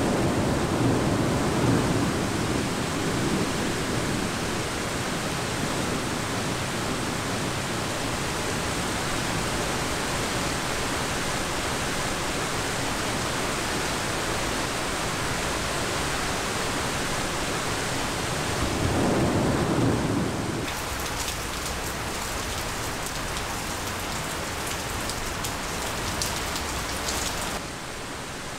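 Steady heavy rain, with low rolls of thunder in the first few seconds and again about two-thirds of the way through. From about twenty seconds in, a crackly patter of drops hitting a surface comes through, easing near the end.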